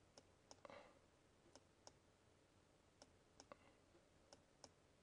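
Faint clicks of a computer mouse button, pressed and released in pairs as each freehand stroke is drawn, over near silence.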